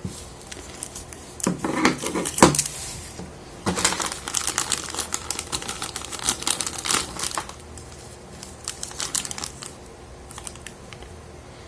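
Plastic packaging crinkling and rustling in irregular bursts of crackles and small clicks, as figure parts are unwrapped and handled; it dies away near the end.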